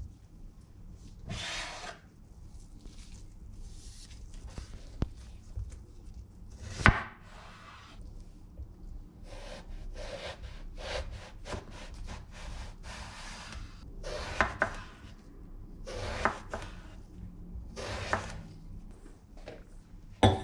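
Kitchen knife peeling and cutting an eggplant on a wooden cutting board: a series of short scraping strokes with several sharp knocks of the blade on the board.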